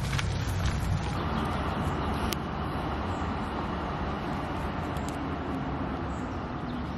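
Steady hum of distant city traffic, with a few light clicks about a second in.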